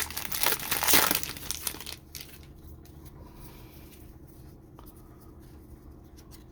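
Crinkling and tearing of a 2023 Donruss football card pack wrapper being ripped open by hand, for about the first two seconds, then only faint light handling ticks.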